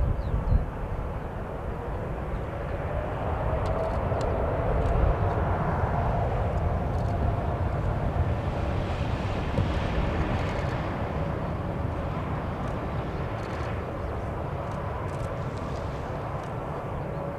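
Boeing 787-8's Rolls-Royce Trent 1000 jet engines spooling up for takeoff, a whine that rises a few seconds in under a growing roar that then eases as the airliner rolls away down the runway. Heavy wind rumble on the microphone throughout.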